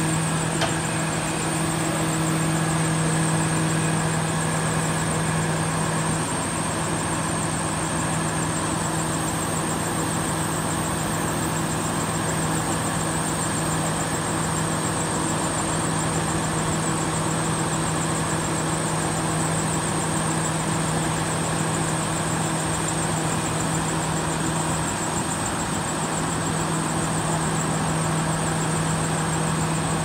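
Large engine running steadily at a constant speed, a continuous hum with no revving.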